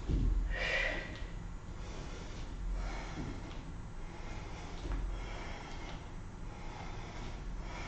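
A woman breathing hard with short exhales while doing alternating forward lunges, the strongest exhale about a second in. Dull low thuds of her bare feet stepping down come about every two and a half seconds.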